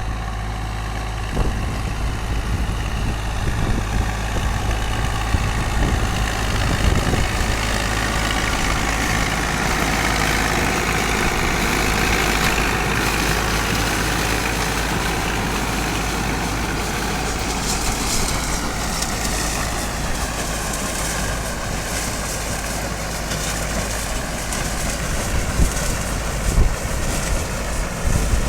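Zetor 4718 tractor's diesel engine running steadily while working a SIP Tornado corn harvester. Over it runs a broad machinery noise that swells in the middle, with a fast rattle in the second half.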